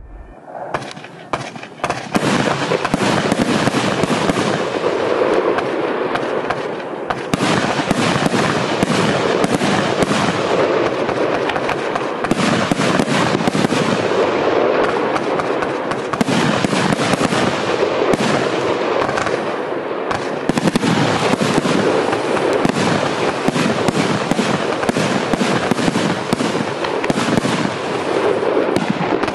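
Pyroworx Shell Shocked firework cake, a 139-shot barrage of 25 and 30 mm shells, firing in rapid succession: overlapping launches and bursting bangs. It starts with a few separate shots and becomes an unbroken barrage about a second in.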